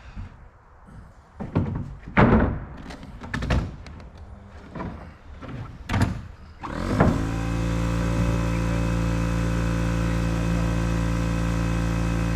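Several sharp knocks and thumps of roof-building work, then about two-thirds of the way in a motor starts up and keeps running steadily.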